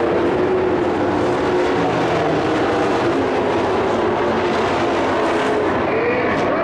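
Engines of several dirt-track racing pickup trucks running hard around the oval, their notes rising and falling as they race.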